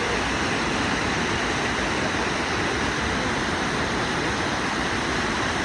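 Steady, loud rush of falling water from the Lechfall waterfall on the Lech river.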